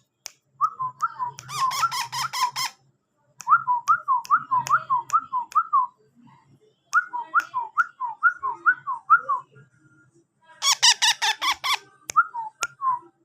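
Ringneck parakeet chick calling: runs of short, rising-then-falling chirps at about four a second, with two bursts of harsh, raspy squawking and a few sharp clicks.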